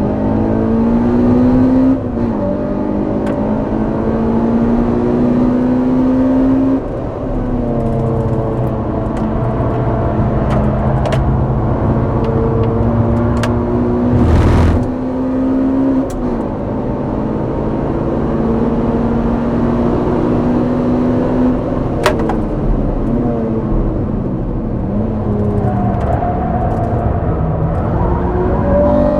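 Honda Civic Type R EP3's 2.0-litre i-VTEC four-cylinder engine, picked up at the exhaust, driven hard on track. The revs climb and drop sharply with each gear change several times. A stretch of falling revs with quick blips comes on the brakes about three-quarters of the way through, before the engine pulls up through the revs again.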